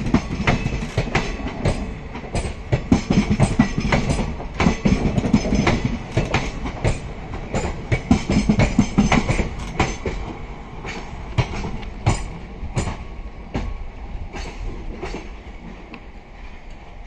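Passenger train coaches rolling past, their wheels clattering over rail joints and points in a rapid clickety-clack. About ten seconds in, once the last coach has gone by, the clatter thins to spaced clicks and fades as the train moves away.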